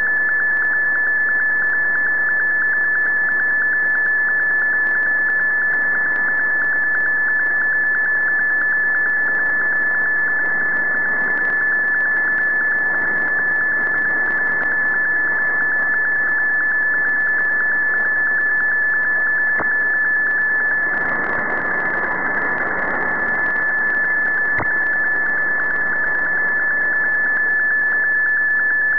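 Digital picture transmission heard through a shortwave AM receiver: a steady high tone over radio hiss and crackling static. The static swells briefly about two-thirds through, and there is a single click soon after.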